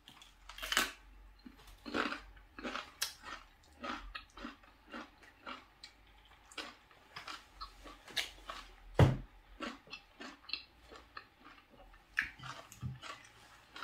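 A person chewing a mouthful of food: irregular crunches and wet smacks, with one louder crunch about nine seconds in.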